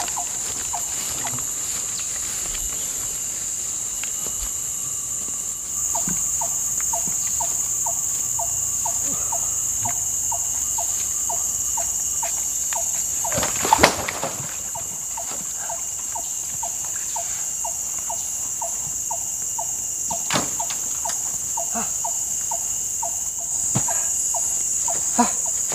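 Steady high-pitched chorus of forest insects, with a short call repeated about twice a second joining in a few seconds in. A sharp knock about halfway through and another a few seconds later.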